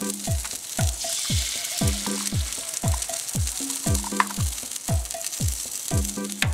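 An egg and bell pepper rings sizzling in bacon grease on a griddle pan, a steady frying hiss. Over it runs background music with a steady beat of deep kick drums, about two a second.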